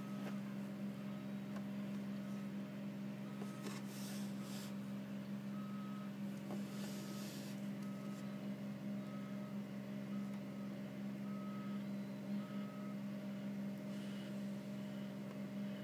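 Tipper truck's reversing alarm beeping about once a second as it backs up to an asphalt paver, stopping shortly before the end, over the steady running of the heavy diesel engines. Two short hisses come around a quarter and halfway through.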